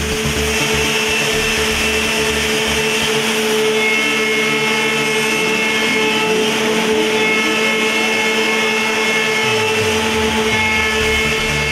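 Spindle of a woodworking CNC machining centre running at speed, milling wooden window-frame parts with a profile cutter: a steady high whine over the hiss of cutting. A deeper sound joins near the end.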